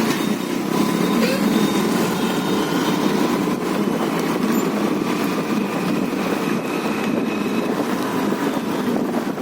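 Steady riding noise from a Hero Destini 125 scooter under way on the road: engine and road rumble holding an even pace.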